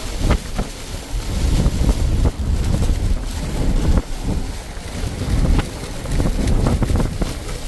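Storm wind buffeting the microphone, with a loud, uneven rumble and scattered sharp ticks.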